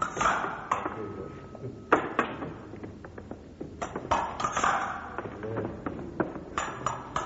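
Fencing blades clashing in a lesson exchange: several quick clusters of sharp metallic clicks and pings, each with a short ring, with a few dull thuds.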